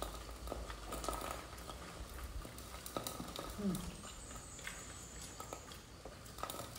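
Quiet eating sounds: soft chewing and mouth noises with scattered light clicks of forks and spoons against bowls. A brief hummed vocal sound comes a little over three and a half seconds in.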